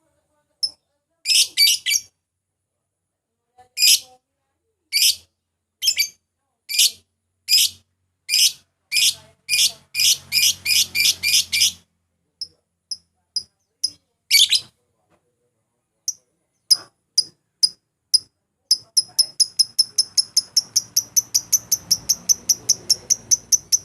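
Lovebird chirping in sharp, high-pitched calls: first single chirps about a second apart, then quick runs, and from near the end a fast, even string of several chirps a second. These are provoking calls used to set a rival lovebird singing.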